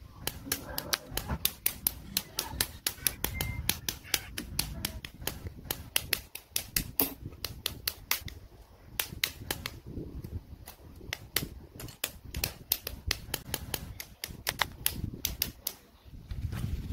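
Sharp clicks of plastic model-kit parts being snipped off their runners with hobby side cutters, coming quickly at about four a second with a few short lulls.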